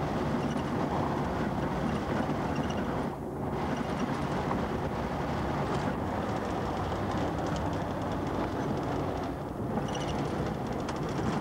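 Car driving on an open road heard from inside the cabin: steady engine, tyre and wind noise, dipping briefly twice.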